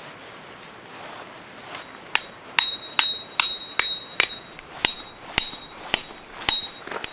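Hammer blows on metal, about a dozen strikes at roughly two a second starting about two seconds in, most leaving a short high ring.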